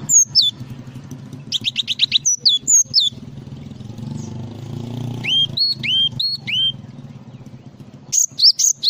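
Cinereous tit (gelatik batu) singing in bursts of repeated clear whistled notes. It gives sharp down-slurred notes, a quick run of notes about one and a half seconds in, lower rising hooked notes around the middle, and a loud series near the end. A steady low hum runs underneath.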